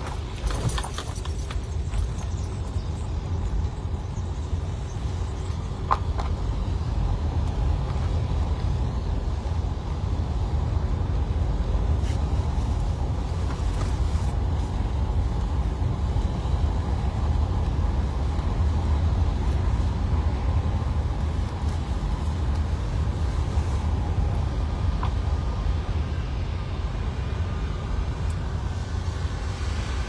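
Car interior noise while driving on an unpaved dirt road: a steady low rumble from the tyres and engine, with a few small knocks along the way.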